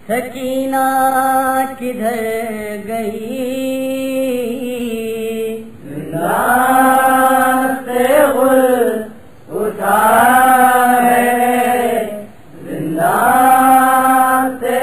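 Male reciter chanting an Urdu noha, a mourning lament, with no instruments: a softer held line for about the first six seconds, then three louder drawn-out phrases with short breaks between them.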